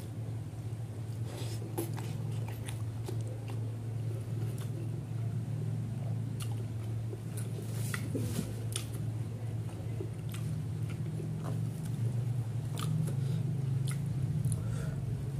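Close-up eating sounds: a person chewing and smacking on a mouthful of catfish curry and rice, with scattered short wet clicks. A steady low hum runs underneath.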